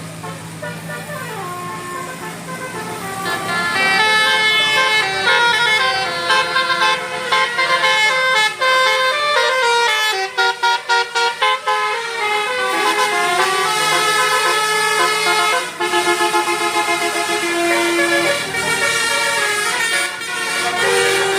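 Basuri telolet bus horn, a multi-tone horn playing a quick melody of stepped notes. It gets louder about three seconds in and has a stuttering run of fast repeated notes near the middle.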